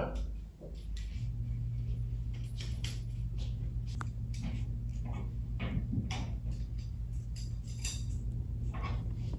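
A steady low hum, setting in about a second in, under scattered light clicks and clinks.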